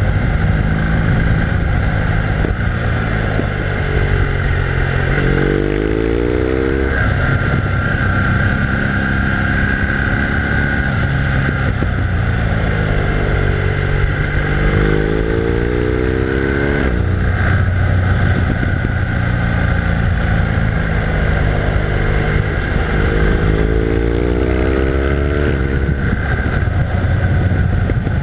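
BMW R1200R LC's liquid-cooled boxer twin engine under way, its revs rising three times, about five, thirteen and twenty-three seconds in, as it accelerates, and falling back between as the throttle eases off.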